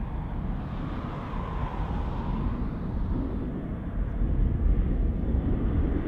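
Boeing 777 freighter's twin GE90 jet engines running as the aircraft taxis, a low rumble that grows gradually louder, with a faint wavering whine in its first half.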